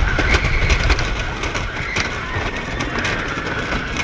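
Roller coaster train running along its track, heard from on board: the wheels clack and rattle with a wavering high whine over a constant low noise.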